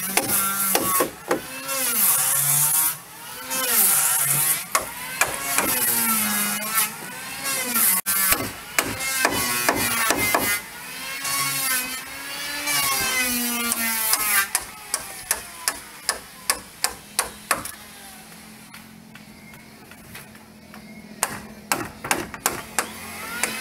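A wooden mallet strikes wooden pegs into the boat's timber ribs, in runs of sharp knocks about two or three a second in the second half, with a pause between runs. Before the knocks, a pitched sound rises and falls in pitch several times.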